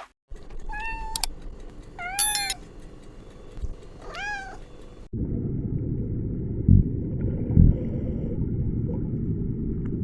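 Three short meow-like calls from an animal, each rising and falling in pitch, spaced about a second and a half apart. About five seconds in they give way to a steady low rumble with a few dull thumps.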